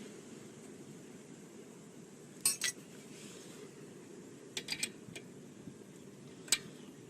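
Sharp metallic clinks of hand tools and brake hardware being handled: two about two and a half seconds in, a quick cluster of three near the middle, and one more near the end, over a low steady hum.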